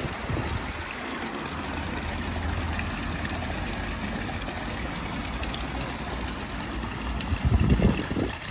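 Water pouring from a return pipe into a koi pond tub, a steady splashing rush, with a low hum under it. Near the end a brief louder low rumble comes in.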